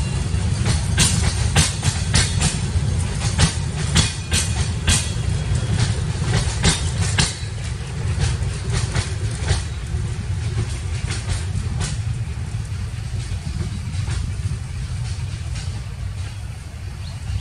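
Bangladesh Railway intercity passenger coaches rolling past on the rails: a steady low rumble with sharp wheel clacks over the rail joints. The clacks come thick and fast at first and thin out after about seven seconds as the tail of the train goes by.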